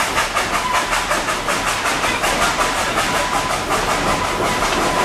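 Narrow-gauge passenger train rolling along, heard from an open-sided car: a fast, even clatter of wheels over the rail joints, with a thin steady squeal joining about half a second in as the cars round a curve.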